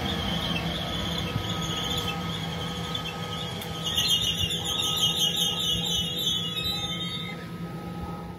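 A train at a station platform: a steady low hum under a high, wavering squeal-like tone. The tone grows louder from about four seconds in and eases off about three seconds later.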